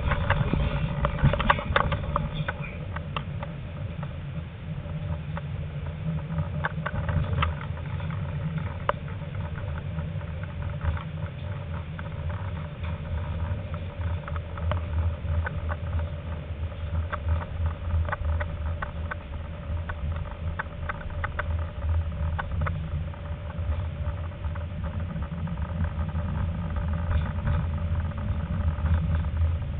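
Tram running on rails: a steady low rumble with a constant hum, broken by many short clicks and rattles.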